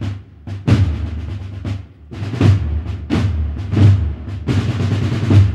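Drum-led music: a steady drum roll with loud bass-drum beats roughly every second.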